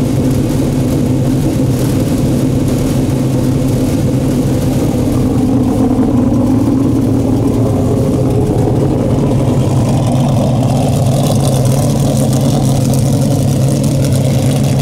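Big-block V8 of a dirt modified race car idling steadily and loudly.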